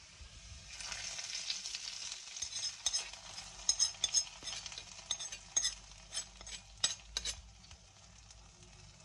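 Hot coconut-oil tempering of fried onion, chillies and curry leaves poured onto fish curry in a clay pot, sizzling as it hits for the first couple of seconds. Then a metal spoon scrapes and taps the pan in a run of sharp clicks and spreads the tempering over the curry.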